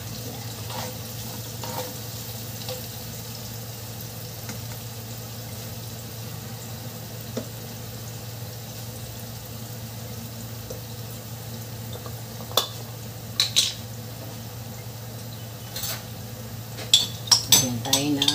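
Garlic, ginger and chillies sizzling gently in oil in a frying pan, over a steady low hum. Near the end, a metal spoon clinks several times against a glass jar as sauce is scooped out.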